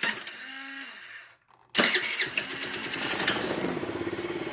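Small scooter engine being electric-started: a first short spin of the starter dies away, then about two seconds in it cranks again, catches and runs steadily with a rapid pulse. It starts rather than only clicking, as the loose starter-wire fault has been cured.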